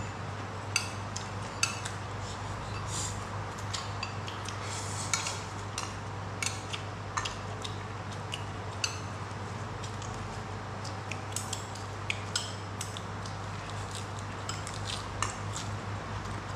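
Chopsticks clicking and tapping irregularly against a ceramic plate and bowl during a meal, each click with a short high ring, over a steady low hum.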